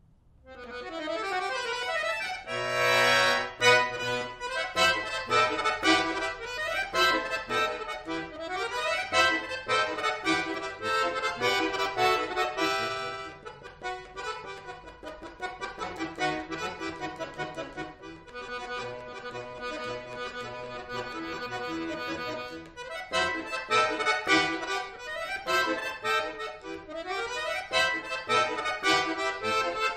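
Solo chromatic button accordion starting a piece after silence about half a second in, with a loud held chord around three seconds in, a softer middle passage, and louder playing again near the end.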